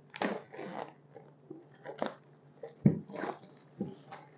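Plastic shrink wrap crinkling and crackling in irregular bursts as it is torn and peeled off a pen box, with a short, deeper knock about three seconds in.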